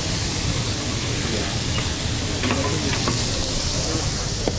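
Vegetables sizzling on a hot flat-top griddle in a steady hiss, with a few short clicks and scrapes of metal spatulas turning them.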